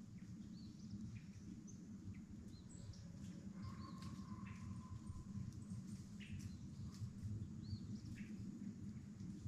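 Small birds chirping in short, scattered calls over a low, steady rumble, with one faint drawn-out tone near the middle.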